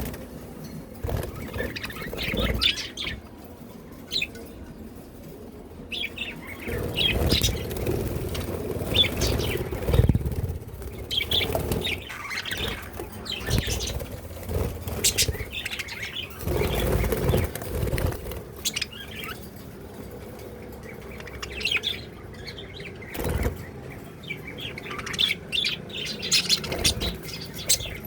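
Small pet parrots chirping in many short, high calls, with recurring bursts of wing flapping.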